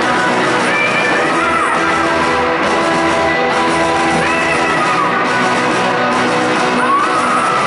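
A live rock band plays loud through a hall's sound system: electric guitars, bass and drums, with held notes and a few sliding pitch bends that rise and fall.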